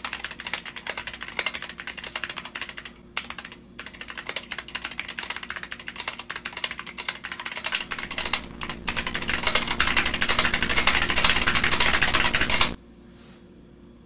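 Fast typing on a custom 60% mechanical keyboard with Zealios V2 tactile switches in an aluminium Tofu case: a dense stream of key clacks with a brief pause about three seconds in. The clacks grow louder in the second half and stop shortly before the end.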